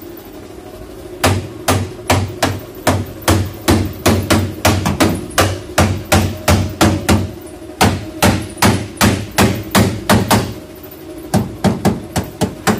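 Hammer blows on the damaged steel front end of a 2009 Toyota Corolla held under tension by a chain puller, beating the bent metal back into shape. The blows come steadily, nearly three a second, break off briefly about ten seconds in, then resume for a few more near the end.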